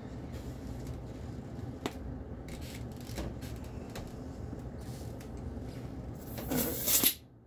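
Umarex T4E HDR-50 fired empty to vent its remaining air: a sharp burst of escaping air, just under a second long with two peaks, comes near the end. Before it, a few faint clicks of handling over a steady low hum.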